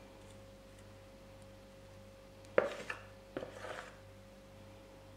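A spoon knocking twice against the mixing bowl, a sharp tap about two and a half seconds in and a lighter one just under a second later, each followed by a brief scrape as brownie batter is spooned off into paper baking cups. A faint steady hum runs underneath.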